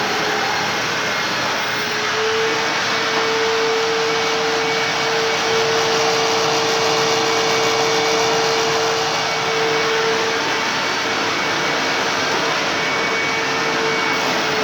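Self-propelled WindTunnel upright vacuum cleaner running steadily: a loud rush of air with a steady motor whine underneath.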